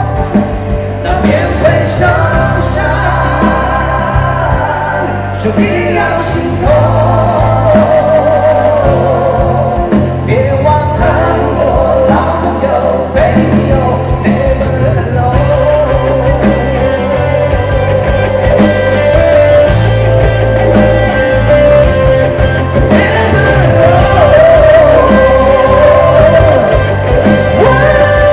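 Live pop-rock song: male vocalists singing into microphones over a full band backing.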